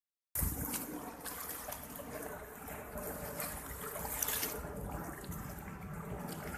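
Small sea waves lapping and splashing against the shoreline rocks: a steady wash with scattered small splashes, over a low uneven rumble.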